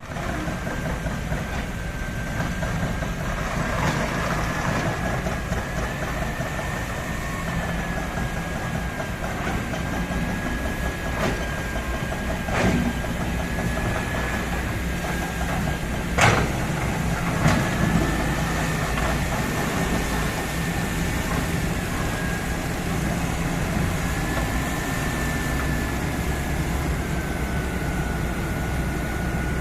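Kobelco SK200 hydraulic excavator's diesel engine running steadily with a thin, slightly wavering high whine. A few sharp knocks stand out, the loudest about sixteen seconds in.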